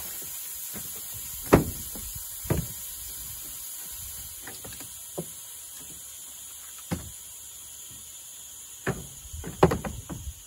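Air hissing out of a tire through the valve stem with its core removed, slowly getting quieter as the tire deflates. Sharp knocks are scattered over it: a loud one about a second and a half in, a few more, and a cluster near the end.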